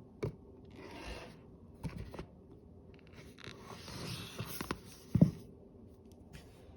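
A paper picture book being handled: two stretches of paper sliding and scraping, with a few light knocks, the loudest just after five seconds in.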